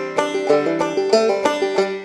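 Background instrumental music: a string instrument picking quick, rapid notes over a steady accompaniment.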